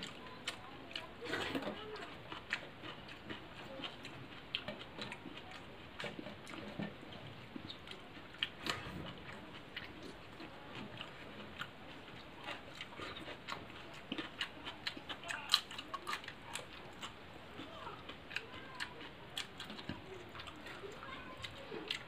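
Eating rice and curry by hand from a steel plate: fingers squishing and mixing the food on the metal, with chewing and lip smacks. The sound comes as irregular small clicks and smacks.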